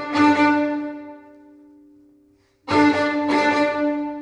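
String trio of violin, viola and cello playing a loud chord that dies away over about two seconds. After a brief silence a second loud chord comes in, is struck again about half a second later, and fades in turn.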